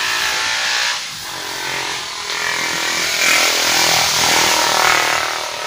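A small engine running, its pitch rising and falling about halfway through, over a steady hiss.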